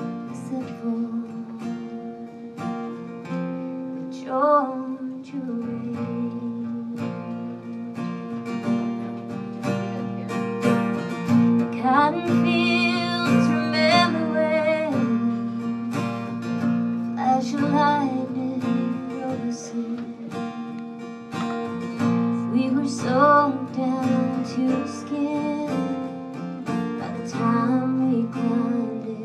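Acoustic guitar strummed under a woman singing a slow country song with vibrato on the held notes.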